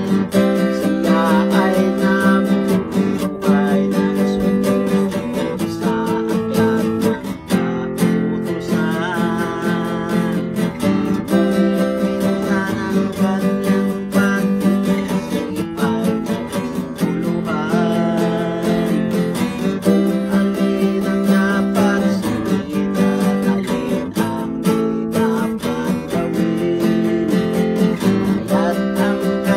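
A man singing a Tagalog song while strumming a steel-string acoustic guitar.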